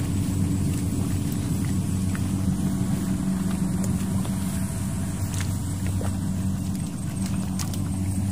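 A small engine running steadily at an even speed, with a few faint clicks over it.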